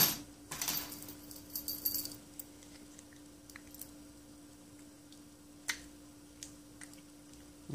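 Metal handling sounds from a rusty T.Mi.Z.35 Teller mine fuze being turned in the hands: a sharp click at the start, then a second or two of clinking and jingling from the metal clip and ring hanging off it, then a few faint scattered clicks. A faint steady hum sits underneath.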